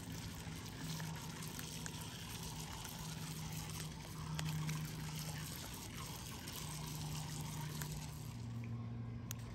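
Small waves lapping and trickling among shoreline rocks, with faint small clicks. A low hum comes and goes several times and sits lower near the end.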